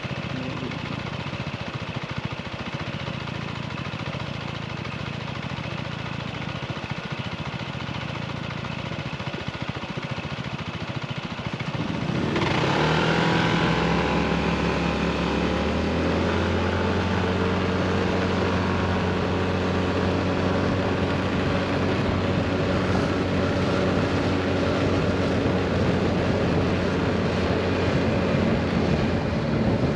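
Scooter engine and road noise while riding. About twelve seconds in, the sound grows louder as the scooter speeds up, then holds a steady engine note at cruising speed.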